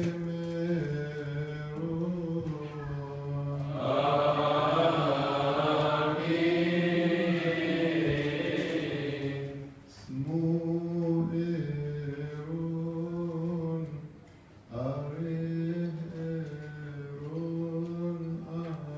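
A solo male voice chanting a Coptic Orthodox liturgical chant through a microphone, in long held, slowly ornamented notes. The chant swells louder and fuller between about four and nine seconds in, and breaks off briefly for breath twice.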